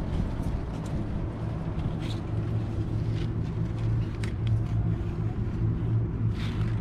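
Steady low mechanical hum, unchanging in pitch, with a few faint clicks over it.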